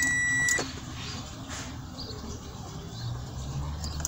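A car's electronic warning beep: one steady high-pitched tone about half a second long at the start, then only a faint low hum.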